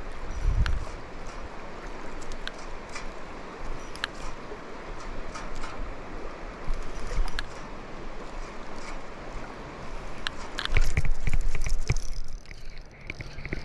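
Steady rush of river water tumbling below a waterfall, with a few low thuds on the microphone about a second in and again near the end.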